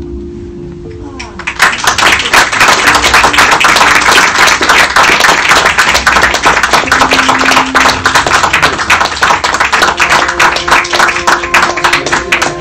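Audience applauding, breaking out about a second and a half in and going on loud and dense, over the film's end-credits music, which holds soft sustained tones before the clapping and under it.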